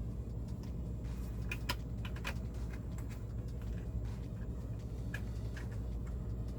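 Plastic LEGO pieces being handled and pressed together: a few light clicks and taps, bunched about one to two seconds in and scattered later, over a steady low hum.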